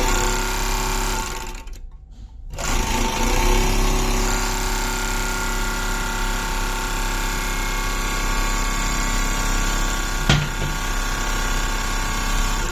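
Four-thread overlock sewing machine running fast, stitching cloth. It stops for a moment about two seconds in, then starts again and runs steadily, with one sharp click near the ten-second mark.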